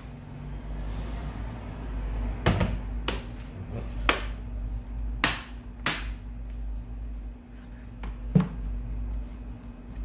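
Plastic laptop casing clicking and knocking as the refitted back cover is pressed home and the laptop is turned over and opened: about six sharp separate knocks spread over several seconds, over a low steady rumble.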